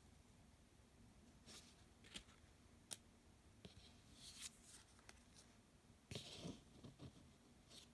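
Faint handling of a deck of cards: a few soft swishes of cards sliding against each other and light taps as a card is moved off the deck.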